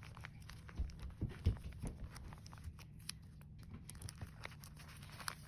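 Faint rustling and crinkling of paper being handled, with a few soft taps and thumps about one to two seconds in.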